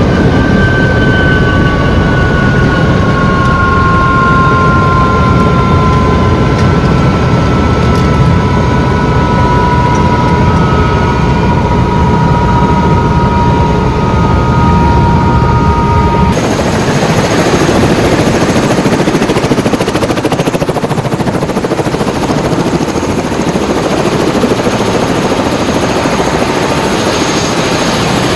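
Helicopter heard from inside the cabin: a loud steady drone with two high whining tones that slowly fall in pitch. About two thirds of the way in it changes abruptly to the helicopter running outside, a rushing hiss of rotor wind on the microphone with a thin high whine.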